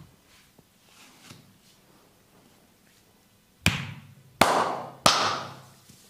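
Three loud massage slaps, hands striking bare oiled skin, about two-thirds of a second apart in the second half, each sharp at the start and trailing off briefly.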